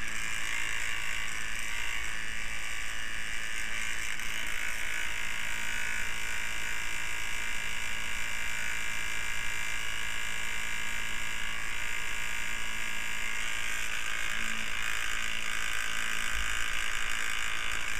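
Electric fan running with a steady whir.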